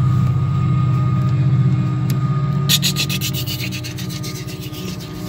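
Union Pacific diesel freight locomotives passing close by with a loud, steady engine drone. From about two and a half seconds in, the engine fades a little and a fast, rhythmic clicking and rattling of freight car wheels on the rails takes over.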